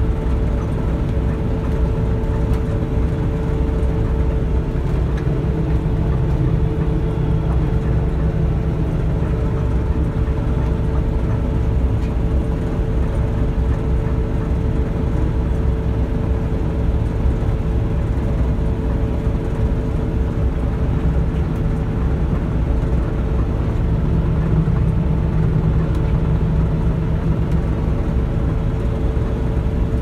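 Combine harvester running steadily while cutting a cereal crop, heard from inside the cab: a constant low engine and machinery drone with a steady whine over it.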